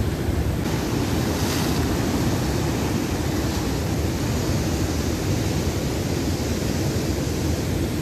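Rough sea surf breaking and washing over rocks below a pier, a steady rushing noise, with wind buffeting the microphone.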